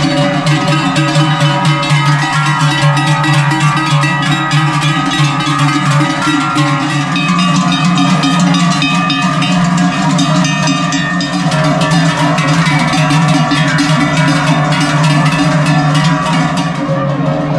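Many large cowbells clanging continuously and unevenly as a herd of cattle is driven past, the bells overlapping into a dense, loud ringing din.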